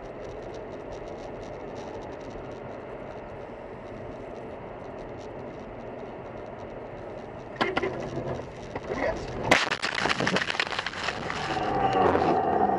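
Car on the road with steady, muffled road noise, then a run of knocks about eight seconds in and a single sharp loud bang a second and a half later, followed by a few seconds of rattling and scraping: a car collision.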